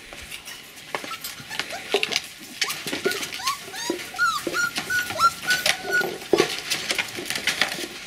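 Several border collie puppies whimpering and whining, a string of short high-pitched whines that are thickest in the middle, with scattered clicks and scuffles.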